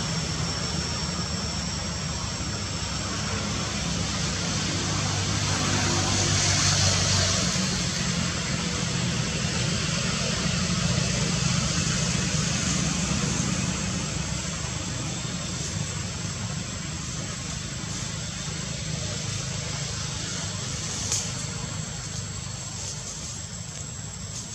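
Motor engine noise running steadily, swelling to its loudest a few seconds in and then slowly fading, over a thin constant high-pitched whine.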